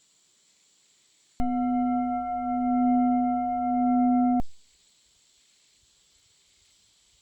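A steady ringing tone with several overtones, like a singing bowl, wavering slightly in loudness. It starts abruptly about a second and a half in and stops about three seconds later.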